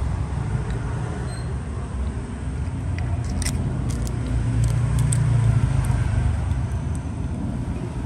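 Low steady background rumble, swelling about five seconds in, with a few light clicks and crinkles from a small plastic bag and a metal Zippo lighter insert being handled.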